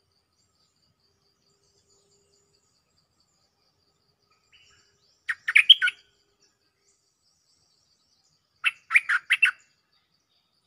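Stripe-throated bulbul singing two short, loud phrases of rapid bubbling notes, about three seconds apart, calling for a mate. A faint, even ticking runs behind.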